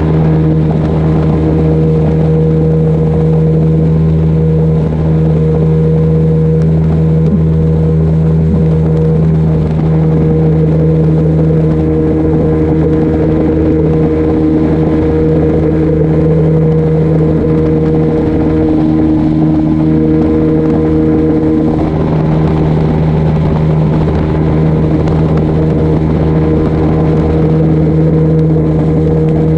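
Outboard motor of a flats poling skiff running steadily at cruising speed, with a steady rush of wind and water over it.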